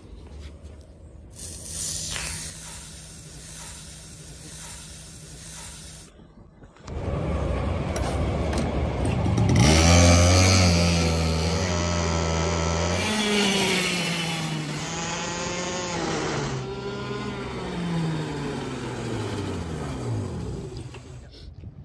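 Racing go-kart engine: a steady idle at first, then, after a short break, running much louder and revving, its pitch climbing and then falling back in several steps toward the end.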